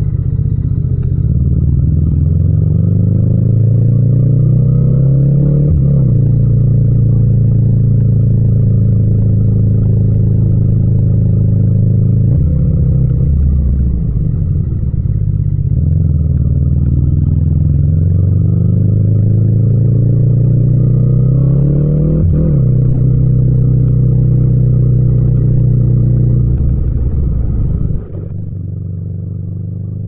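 Yamaha MT-07's 689 cc parallel-twin engine pulling through the gears under throttle. The pitch climbs and breaks briefly at a shift about six seconds in, sags around the middle, then climbs to another shift past twenty seconds. Near the end the throttle closes and the sound drops suddenly to a quieter, lower note.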